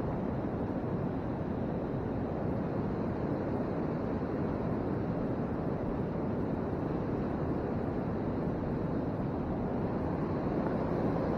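A steady, even rushing noise with no breaks or distinct events.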